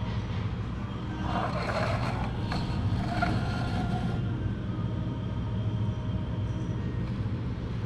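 Steady low hum of room machinery, with faint, indistinct mid-pitched sounds between about one and four seconds in.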